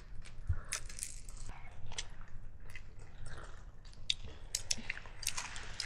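Scattered light clicks and clinks, irregular and sharp, over a steady low rumble.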